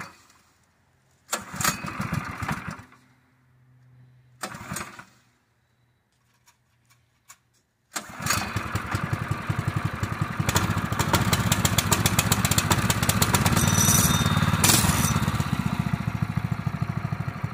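Predator 212 single-cylinder four-stroke engine being pull-started: two short bursts early on, then it catches on a pull about eight seconds in and runs steadily with an even firing beat.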